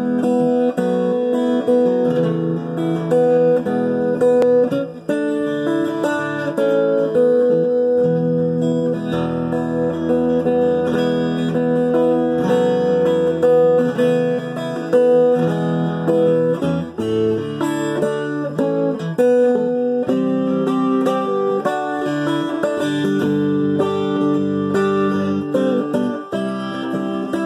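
AeroElectric 12 twelve-string guitar played solo, picked chords and single notes ringing into each other.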